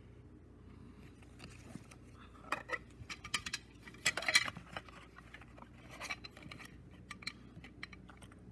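Cassette packaging being handled: a clear cellophane wrapper crinkling and a clear plastic cassette case clicking, in a run of crackles and clicks. The loudest is about halfway through.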